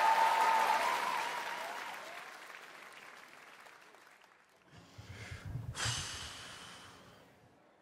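A theatre audience applauding, fading away over the first few seconds. About five seconds in, a microphone picks up a few soft knocks and a short rustle as it is set back into its stand.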